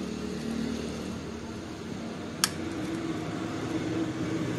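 Steady low mechanical hum, with one sharp click about halfway through as a plastic 5-pin motor connector is handled.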